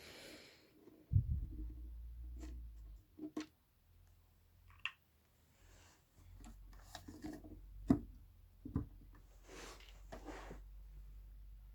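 Handling noise from working a part loose inside a subwoofer cabinet: scattered knocks and clicks, short scraping and rubbing, and a low rumble that comes and goes.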